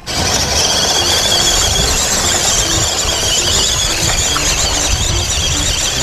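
Radio-controlled scale off-road crawler driving through a shallow stream: its electric motor and gearbox whine steadily at a high pitch over a low rumble.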